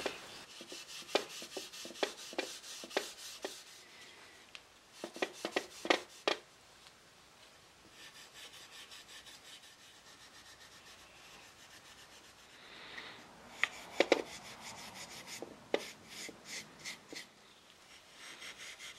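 Beeswax polish being rubbed by hand into a wooden mirror frame with a small pad: short scuffing strokes. They come in two spells, with a fainter stretch in the middle.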